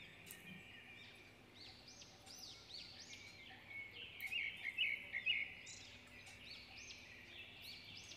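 Small birds chirping: a run of quick, arching high chirps, busiest and loudest around the middle, over a faint steady low hum.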